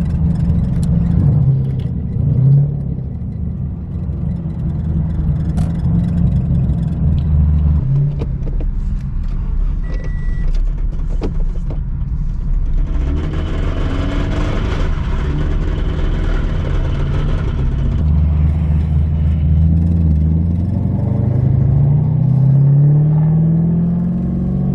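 Scion FR-S's 2.0-litre flat-four engine running on the freeway with a rod knock, losing power. A swell of road noise comes through in the middle, and near the end the engine note rises as it picks up speed.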